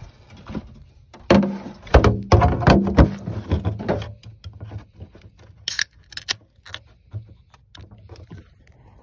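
Aluminum beer cans clattering against each other and a wire basket as one is pulled from a cooler, then set down on the plastic cooler lid. About six seconds in, the can's tab is cracked open with a short hiss and a few clicks.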